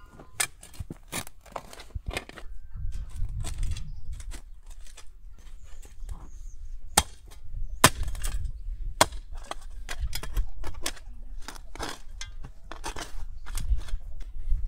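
Irregular sharp strikes of hand tools, a spade cutting into earth and a blade chopping wood, roughly one or two a second over a low rumble.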